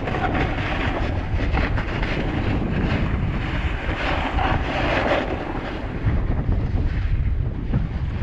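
Wind buffeting the microphone of a skier's action camera, with skis scraping and chattering over the snow on a downhill run.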